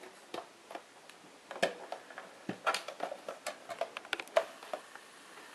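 Irregular clicks and light knocks of a plastic Telur 201 desk telephone being handled and turned over, beginning with its ringer volume slider being pushed. The knocks come thickest in the middle of the stretch and stop a little before the end.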